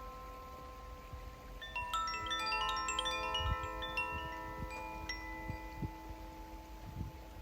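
Koshi and Zaphir tuned wind chimes ringing. A lingering chord fades for the first second or so, then a new cluster of strikes from about two seconds in sets many overlapping bell-like tones sounding together and sustaining. A few soft low thuds fall in the middle and near the end.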